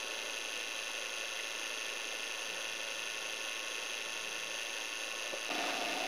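Steady low hiss with faint constant tones and no distinct events. Near the end it changes abruptly to a louder steady drone.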